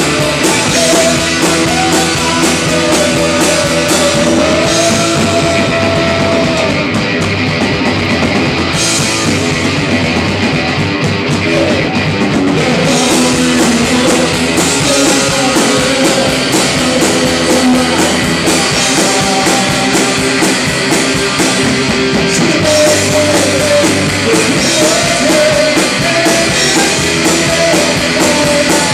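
A rock band playing loud and live: electric guitar and drum kit, with a man singing into a microphone.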